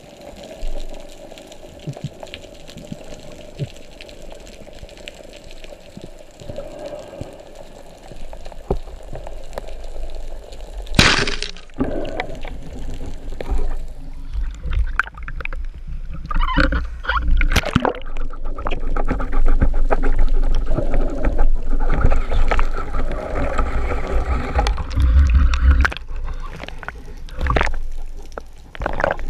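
Underwater sound from a band speargun's mounted camera: a low steady water hiss, then about 11 seconds in a single sharp crack as the speargun fires. After it comes louder rushing water with many clicks and knocks, loudest in the last third.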